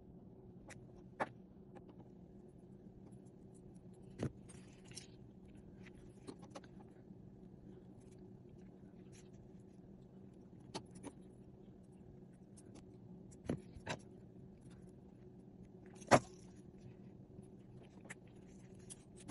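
Sparse small metallic clicks and clinks from gold-plated chain, findings and jewelry pliers being handled, about eight in all with one sharper click near the end. A steady low hum runs underneath.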